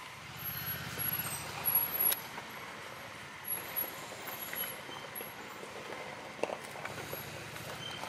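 Yamaha Grizzly 700 ATV's single-cylinder engine running at low speed, louder at the start and again near the end, with scattered clicks and knocks.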